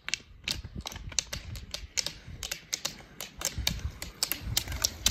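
Ski pole tips striking asphalt as several roller skiers skate up the path, a rapid irregular patter of sharp clicks that grows louder as they come near.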